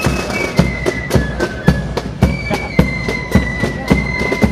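Music with a steady drum beat of about two hits a second under a high, sustained melody line that steps between long held notes.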